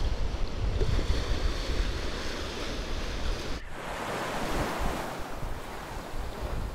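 Strong wind buffeting the microphone with a heavy low rumble, over choppy sea waves; the sound drops out for an instant a little past halfway, then the wind carries on.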